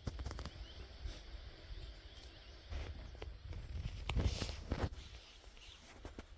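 Irregular footsteps, a few heavier steps about four seconds in, over a steady low rumble of wind on the microphone.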